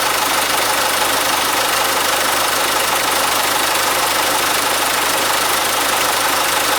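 Mitsubishi Fuso Canter's 4D33 4.2-litre non-turbo diesel engine idling steadily, with an even, unchanging run.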